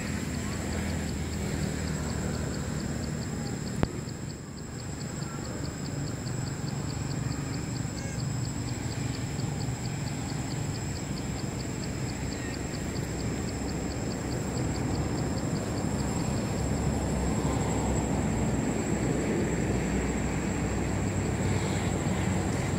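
Outdoor ambience: a steady low rumble that grows a little louder in the second half, with a continuous high whine and a fast, even pulsing chirp above it, like insects calling. A single sharp click about four seconds in.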